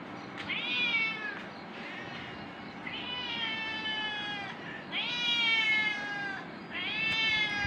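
Spotted tabby cat meowing to be fed its milk: four long drawn-out meows, each sliding down in pitch at the end.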